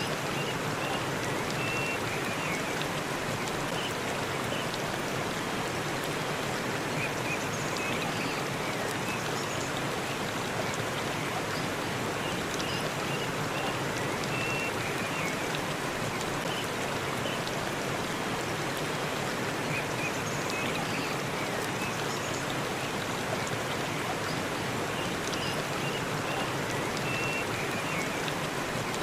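Waterfall in a forest: a steady, unbroken rush of falling water, with faint short high notes now and then over it.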